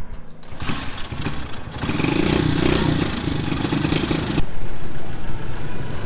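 Motorbike engine starting and running, louder from about two seconds in, with an abrupt change in the sound about four and a half seconds in.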